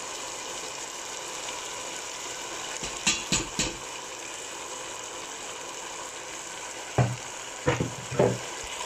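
Cubed raw potatoes frying in oil in a non-stick pan, a steady sizzle. A spatula knocks and scrapes against the pan three times about three seconds in and three more times near the end as the potatoes are stirred.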